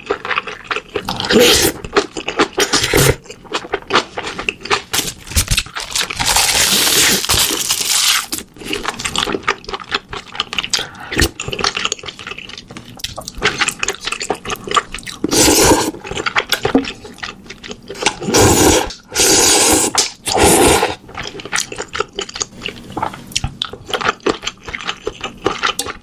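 Close-miked wet eating sounds: mouthfuls of spicy stew chewed and slurped, with many short smacking clicks and a few longer slurps. Chopsticks and a spoon scrape against the metal pot.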